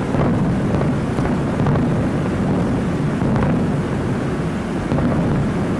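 Fireworks shells bursting, their booms running together into a continuous low rumble, with a sharper report standing out about every second and a half.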